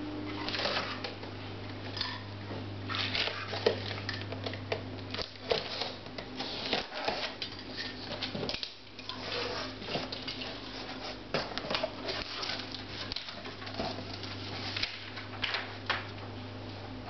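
Unboxing: a box cutter slitting packing tape and cardboard flaps being pulled open, then crinkling of the plastic and bubble wrap inside, with many small scrapes and crackles. A low background hum fades out for several seconds in the middle.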